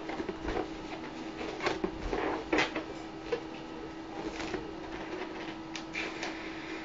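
A large latex balloon being blown up by mouth: short puffs of breath and handling noises of the rubber, loudest about two seconds in, over a steady low hum.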